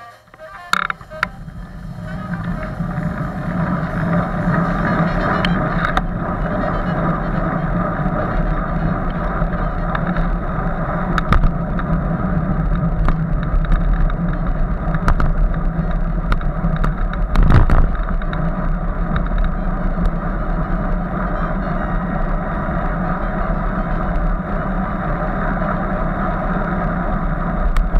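Steady wind and road noise on a bike-mounted camera's microphone as the bike pulls away from a stop and rides along in traffic. The noise builds over the first few seconds as it picks up speed, with occasional sharp knocks, the strongest about two-thirds of the way through.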